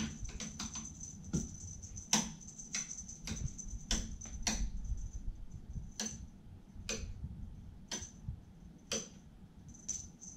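Irregular sharp clicks and taps from kittens playing with a feather wand toy, some close together near the start, then about one a second. A faint steady high-pitched whine runs underneath.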